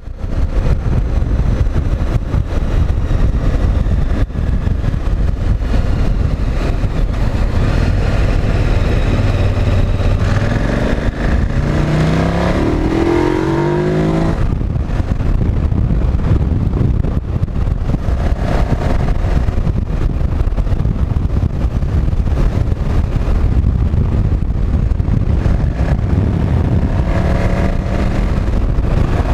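KTM 990 Adventure's V-twin engine running on the road under a steady rush of noise; a little over a third of the way in it revs up in a rising pitch as the bike accelerates, then settles back to a steady run.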